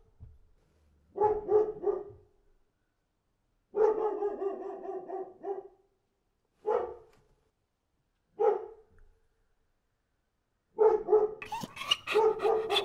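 Dog barking in short bouts with silences between: a quick run of three barks, a longer drawn-out bark, two single barks, then rapid, almost continuous barking near the end.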